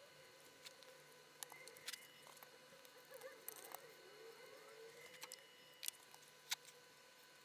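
Near silence with a few faint clicks and light taps; the sharpest click comes about six and a half seconds in.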